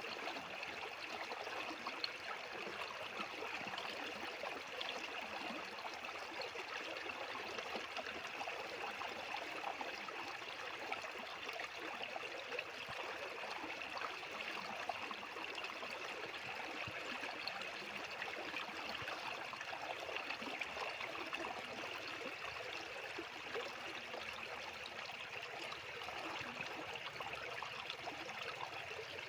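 Fast-flowing water rushing steadily, a stream or channel running over stones.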